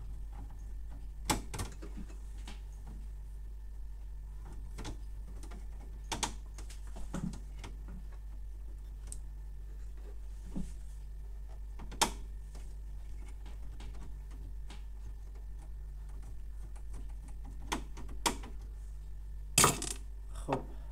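Irregular sharp clicks and taps of a screwdriver and hands working a screw into the internal chassis of a Canon MF216n laser printer, the loudest knock a little before the end, over a steady low hum.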